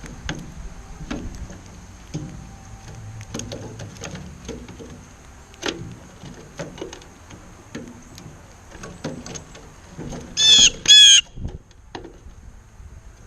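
A bird gives two short, loud calls in quick succession about ten seconds in, over scattered light taps and knocks and a faint steady high tone.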